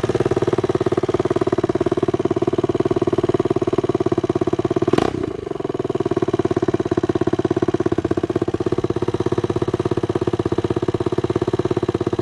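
A 200cc pitbike's single-cylinder engine, newly rebuilt with a fresh cylinder, idling steadily through its old exhaust. There is one sharp click about five seconds in, with a short dip in engine level after it.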